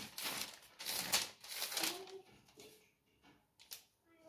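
Paper pages of a lined notebook being flipped through by hand, a quick rustling and riffling that lasts about two seconds.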